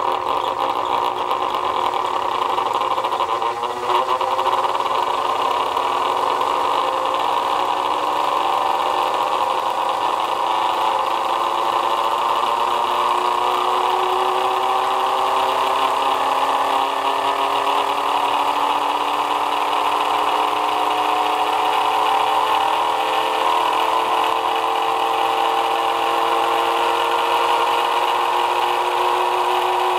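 Small electric-knife motor being overdriven on a test rig, belt-driving a pulley, with a steady whine that climbs slowly in pitch as it speeds up.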